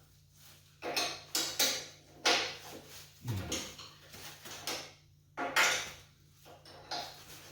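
Metal clinks and scrapes of box-end wrenches and a wheel bolt and nut being handled and fitted on a generator frame, several separate clanks over a few seconds.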